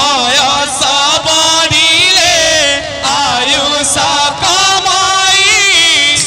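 Devotional kirtan music: a sustained, ornamented sung melody with drum accompaniment.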